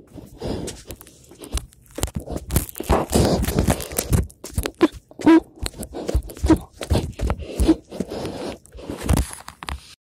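Close, irregular rustling, scraping and thumping of someone moving around on hands and feet while holding the phone, with a few short squeaks in the middle.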